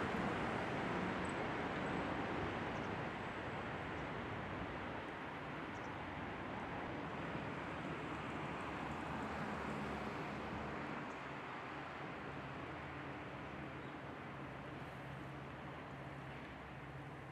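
Steady rumble of distant vehicle traffic with a low engine hum, slowly fading away.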